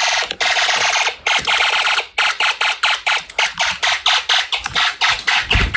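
Electronic fire alarm horn sounding a loud, shrill tone, steady at first and then broken into rapid pulses that speed up over the last few seconds as its pulse rate is raised.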